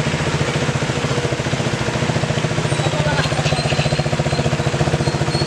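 Motorcycle engine idling with a steady, rapid, even pulse.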